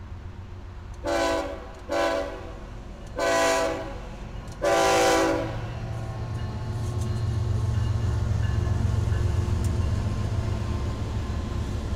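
BNSF freight diesel locomotive's air horn sounding four blasts, the first two short and the last two longer. Then the low rumble of the locomotives' diesel engines grows as the lead units pass close by.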